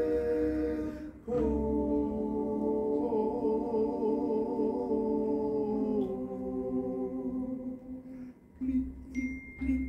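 High school choir singing a cappella in long held chords, with a short break about a second in; the second chord wavers in its upper voice and fades out about six seconds in. Near the end, soft rhythmic beats begin.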